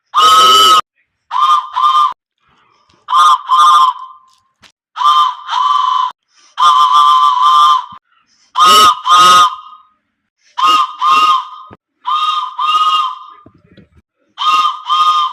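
A whistle blown in short toots, mostly in quick pairs with short pauses between, plus one longer, wavering blast in the middle. Each toot is one steady mid-pitched tone.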